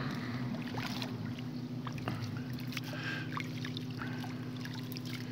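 Steady hum of motorboat engines on the river, with light splashes and clicks from a fish stringer being drawn up through the water at the bank.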